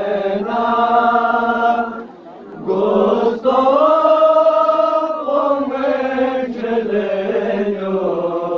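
A group of men chanting a Shia noha lament in unison, holding long drawn-out notes, with a short break in the chant about two seconds in.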